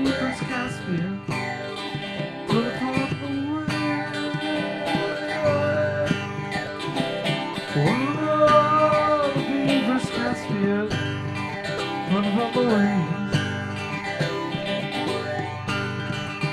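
Live band music in a country-bluegrass style, with guitar and a sustained, gliding melody line.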